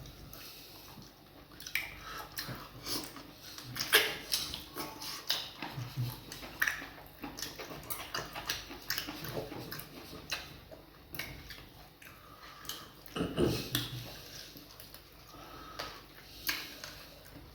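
Close-up mukbang eating sounds of fufu and vegetable soup: irregular wet mouth smacks, chewing and small clicks, with a louder cluster about thirteen seconds in.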